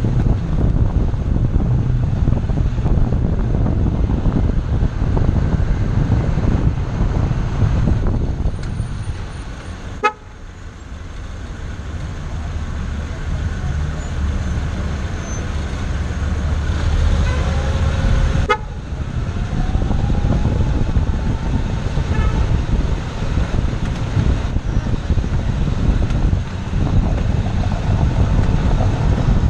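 A car on the move, with a steady low rumble of road and wind noise on the microphone. About ten seconds in, a sharp click is followed by a sudden drop in the noise. Later a short pitched tone like a horn sounds, then a rising tone.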